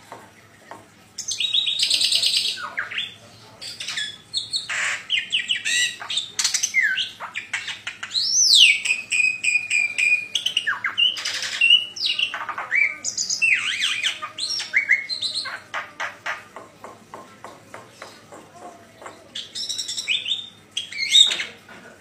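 Black-winged myna (jalak putih) singing a long, varied song of clear whistles, rising and falling notes and rapid chattering, starting about a second in with a couple of short pauses.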